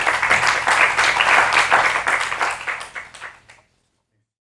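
Audience applauding, a dense patter of many hands clapping, fading out about three and a half seconds in.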